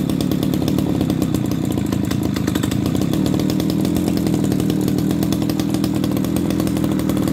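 Kioritz RMB343D brush cutter's small two-stroke engine with a 37 mm cylinder, running at a steady speed without revving up or down.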